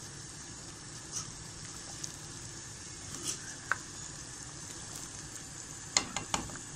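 Chicken korma gravy sizzling steadily in a non-stick wok while a spoon stirs it, with a few light clicks of the spoon against the pan and a quick cluster of knocks near the end.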